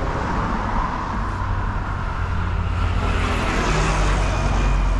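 Street traffic going by, a steady rush of road noise with a vehicle passing close and growing louder over the last couple of seconds.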